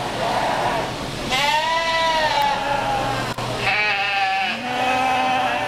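Lambs bleating: two long, wavering bleats, the first about a second in and the second a couple of seconds later.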